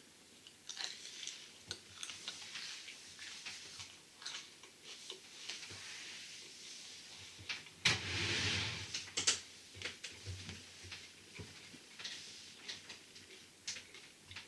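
Chewing a raw, crunchy orange habanero pepper: irregular crunches and wet mouth clicks, with a longer, louder rushing noise about eight seconds in.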